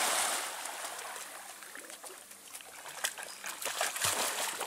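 Splashing in pond water: a big splash at the start that dies away, then a dog wading and splashing in from the bank, with the splashes louder again near the end.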